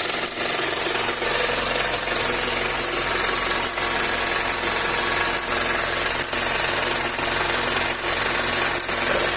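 Honda Accord (Torneo) with its engine running and a steady crackling rattle coming from the MCJA automatic transmission. The owner suspects the flywheel (flexplate) or the torque converter.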